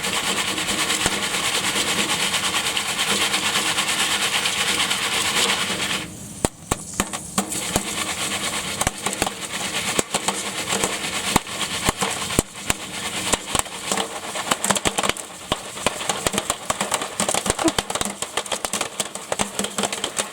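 Jiffy Pop popcorn popping in its foil pan on a stove: a dense, steady hiss for about six seconds, then many sharp, irregular pops.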